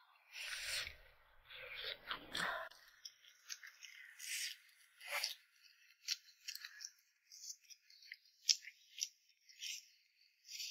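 Close-up eating sounds: chewing and wet mouth clicks as someone eats a soft chive pancake by hand. A denser stretch of bite and chewing noise comes in the first couple of seconds, then a run of small, sharp clicks.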